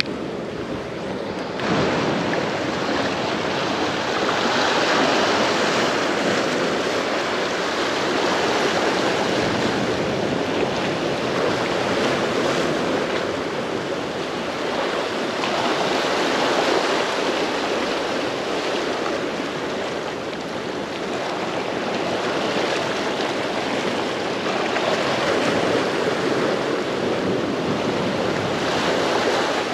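Ocean surf washing onto a beach: a steady rushing noise that swells and eases slowly.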